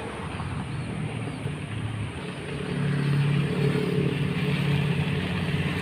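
A road vehicle's engine running as it passes, its hum growing louder about two and a half seconds in.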